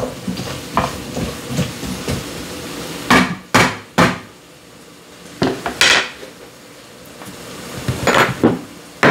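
Sharp knocks and clatter of kitchen utensils and containers being handled while seasoning a stew: a few hard taps in quick pairs a few seconds in, and more near the end.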